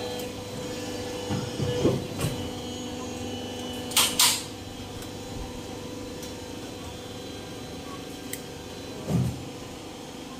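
Plastic injection moulding machine running with a steady hum, which fades about four and a half seconds in. Over it come short knocks and rustles of clear plastic parts and a bag being handled, the loudest a brief clatter about four seconds in.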